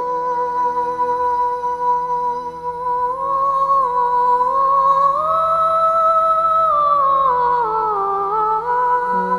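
Slow background music: one melodic line of long held notes over a low steady drone. The line steps up about three seconds in, holds there, then falls back near the end.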